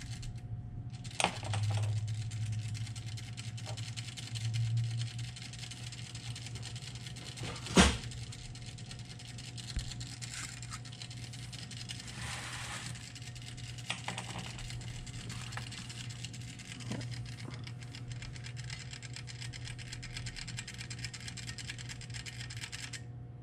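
Clockwork timer of a Toastmaster 1B9 toaster ticking rapidly and evenly over a steady low hum, sluggish in a way the owner puts down to old grease in the mechanism. One sharp knock about eight seconds in, and the ticking stops just before the end.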